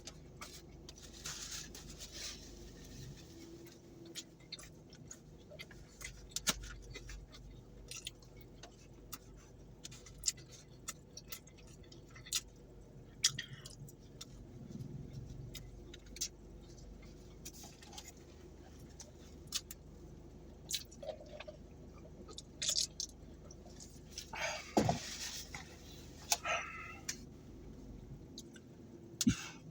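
Close-up chewing of fatty Panda Express teriyaki chicken, heard as many short, irregular mouth clicks and smacks, with a busier stretch of chewing near the end. The meat is tough and fatty and hard to chew apart.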